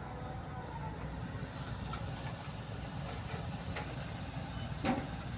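Kobelco SK130 excavator's diesel engine running steadily, with a few light clicks and one sharper knock about five seconds in.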